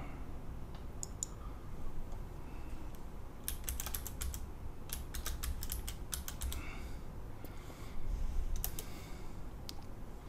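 Computer keyboard typing in several short runs of keystrokes, with pauses between them.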